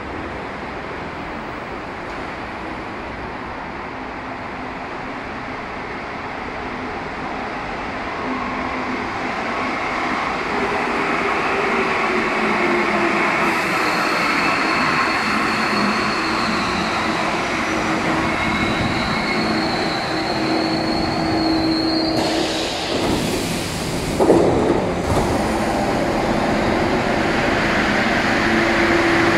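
Alstom NS-16 rubber-tyred metro train running and growing louder, with an electric motor whine that rises in pitch. A sharp burst of hiss comes about 22 seconds in.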